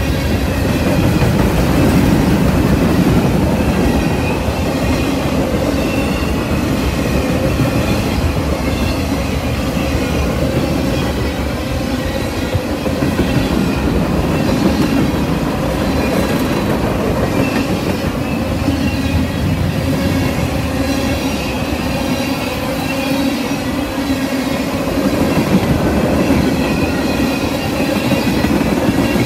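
Freight cars of a fast-moving Norfolk Southern train rolling past: a steady, loud rumble and clatter of steel wheels on rail, with a faint high wheel squeal running through it.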